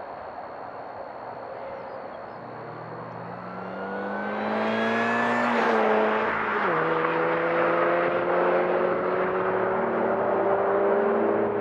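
Supercharged R53 MINI Cooper S engine accelerating, with the high whine of its Eaton M45 supercharger (fitted with a 17% reduction pulley). The engine note and whine rise in pitch and grow louder, then drop sharply about six seconds in, and the engine carries on at a nearly steady pitch.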